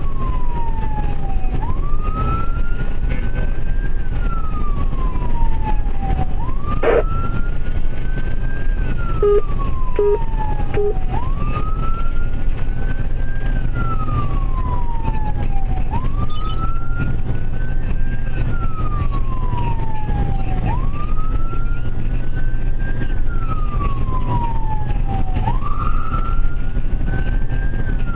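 Ambulance siren on a slow wail, rising over about two seconds and falling over about two and a half, repeating every four to five seconds, heard from inside the moving vehicle over steady road and engine rumble. Three short low beeps about ten seconds in.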